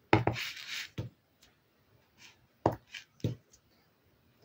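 Small plastic animal stamp knocking against a Versafine ink pad and the card as it is dabbed with ink and pressed down: a few sharp taps with gaps between them, and a brief scratchy rustle right after the first.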